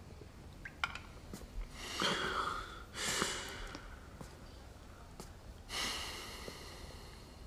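A few soft breathy exhales, about two, three and nearly six seconds in, with a light click about a second in.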